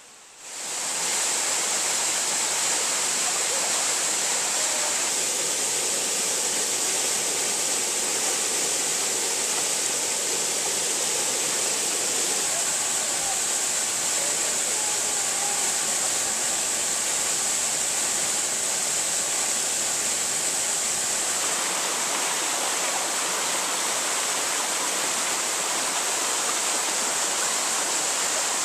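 A waterfall rushing, a steady, even roar of falling water.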